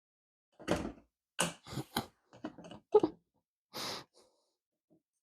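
A run of knocks and clicks, loudest about three seconds in, then a short scrape, as the parts of a folding camp table are handled and fitted together.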